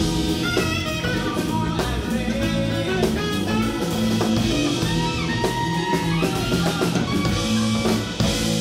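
Live jazz-rock band playing: saxophone lines over drum kit, bass and keyboards. Near the end the band drops out briefly and lands on a steady held chord.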